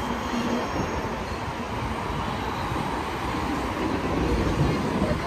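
Steady rumble and tyre noise of heavy traffic on a major city road.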